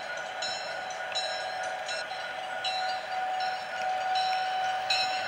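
Model diesel locomotive and freight cars rolling past close by: a steady motor and gear whine, with repeated light clicks from the wheels crossing track joints.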